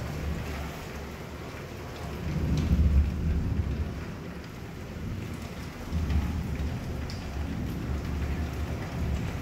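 Heavy rain pouring down steadily, with low rolls of thunder rumbling through it. The loudest roll comes about two to three seconds in, and another begins about six seconds in.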